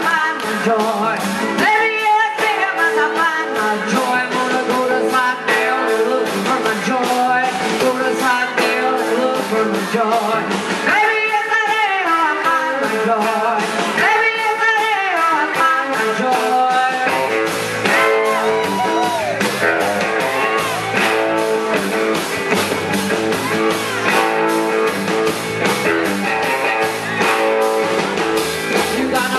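Live rock band playing: a woman singing lead over electric guitars, bass guitar and drums keeping a steady beat.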